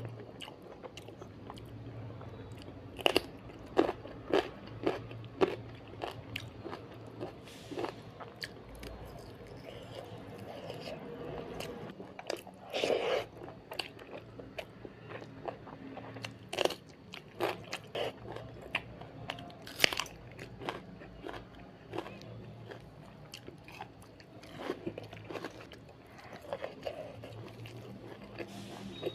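A person eating dal chawal and fried chicken close to the microphone: chewing with sharp, crunchy bites at irregular intervals, a few of them much louder than the rest.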